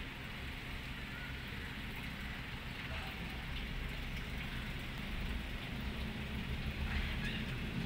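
Steady outdoor background noise: an even hiss over a low rumble, growing slightly louder toward the end.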